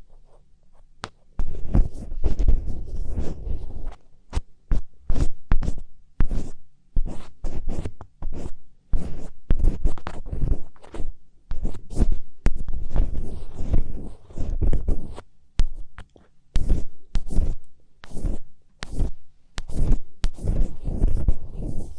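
Close-up scratching for ASMR, rapid scratching strokes in irregular bursts of a second or so with short pauses between, each carrying a heavy low rumble from being right against the microphone.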